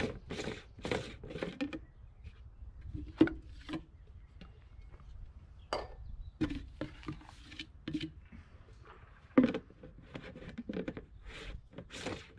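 Black plastic end cap of a document-tube toolbox being taken off and fitted back on: plastic rubbing and scraping against the tube, with two sharper knocks, about three seconds in and about nine and a half seconds in.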